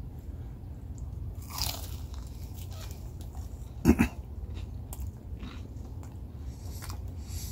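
Biting into and chewing a crunchy rolled chicken taco (flauta): several crisp crunches, the loudest about four seconds in, with softer chewing between, over a steady low rumble.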